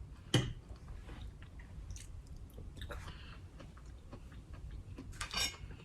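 Close-up chewing and mouth sounds of a person eating, with a sharp tick about a third of a second in, small scattered clicks, and a longer rustling mouth sound near the end.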